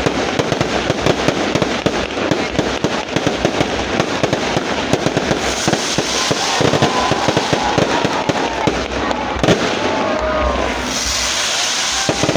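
Fireworks going off: a dense, rapid crackle of pops throughout. From about halfway through, several wavering whistles from whistling fireworks rise and fall over the crackle.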